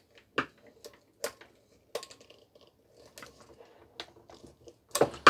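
Scattered light clicks and taps of a screwdriver and plastic parts as a screw is taken out of a small plastic AM/FM radio, with a louder clatter near the end.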